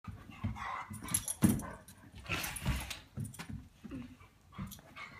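A Great Dane puppy and a Komondor play fighting: whimpers and yips mixed with scuffling, with a thump about a second and a half in.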